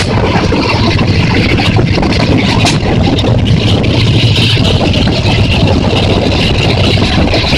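Pakistan Railways passenger train running at speed, heard from alongside the carriage: a steady loud rumble of wheels on rail, mixed with wind rushing over the microphone.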